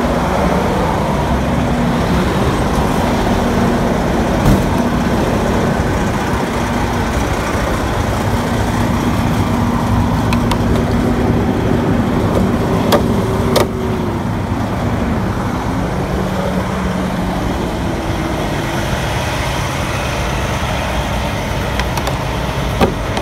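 A truck engine idles steadily. A few short, sharp knocks come through about 4 seconds in and twice around 13 seconds in, as a body panel is pushed on.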